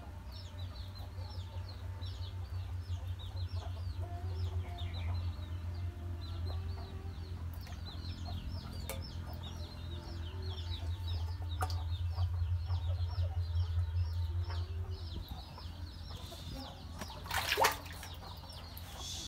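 Chickens: a continuous run of short, high, rapid cheeps with a few low clucks, over a steady low hum. A brief loud rustling burst comes near the end.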